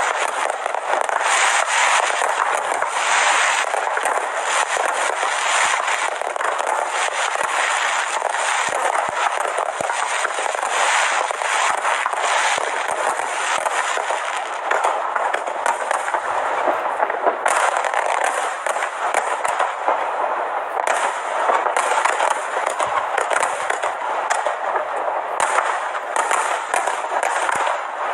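Fireworks display: a dense, continuous crackle of many small bursts and pops, with no deep booms standing out.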